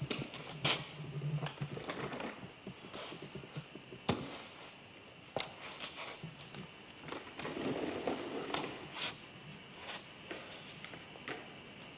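Scattered light knocks and clicks, about a dozen, from objects being handled at a worktable and a swivel chair, with a short low rumble a little past the middle.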